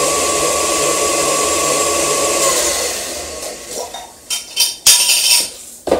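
Electric stand mixer's motor running steadily as it mixes cake batter, switched off about two and a half seconds in. Then several sharp clinks and knocks of a spoon against a glass jar.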